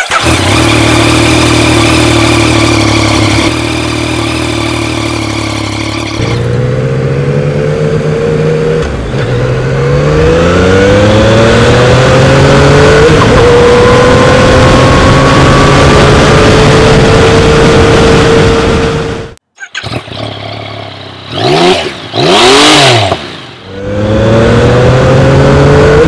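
Yamaha FZ-09's 847 cc three-cylinder engine running steadily, then accelerating with several rising pitch sweeps, each broken off by an upshift, before settling into a steady cruise. After a short break there is a quick rev up and back down, and near the end it accelerates again.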